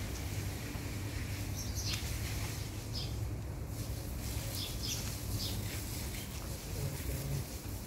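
Small birds chirping in short, high calls several times over a steady low rumble of outdoor background noise.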